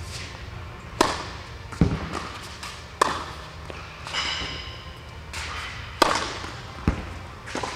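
Tennis serves in an indoor court hall: sharp pops of racket strings hitting the ball, ringing with echo, some followed less than a second later by a duller thud as the ball lands.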